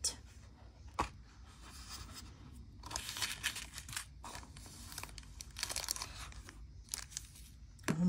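Box lid lifted with a single click about a second in, then crinkling of a thin clear plastic sleeve as a mechanical pencil is pulled out of it and the wrapper is set aside.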